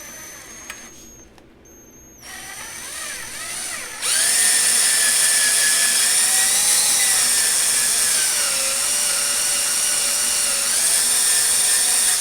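Electric drill running in reverse with a left-hand drill bit, drilling into a broken-off screw to enlarge its pilot hole for an easy out. Two short trigger runs, then a long loud run from about four seconds in whose whine wavers and dips slightly in pitch, stopping abruptly at the end.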